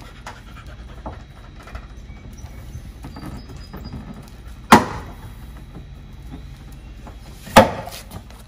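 Plastic retaining clips of a BMW X4's rear bumper cover popping free as the cover is pulled hard at its edge: two loud, sharp snaps about three seconds apart, with low handling noise between.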